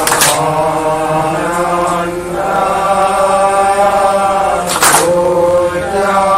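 A group of men chanting an Assamese naam-prasanga devotional chant in unison, in long held notes. Sharp group hand claps fall right at the start and again about five seconds in.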